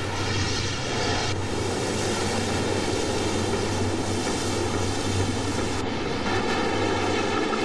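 A steady rushing roar of water over a constant deep hum, as a van sinks into a river. The hiss brightens about a second in and thins a little near the end.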